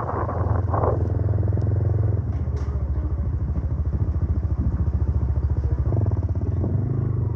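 Small motorcycle engine running steadily while riding along a street, with a low, fast, even pulse.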